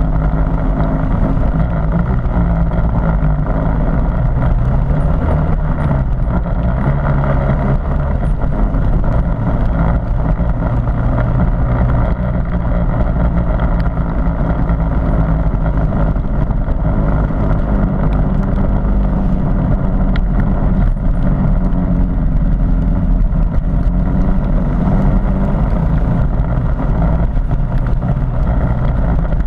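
Harley-Davidson MT350's single-cylinder four-stroke engine running steadily under way, its pitch stepping up and down now and then with the throttle.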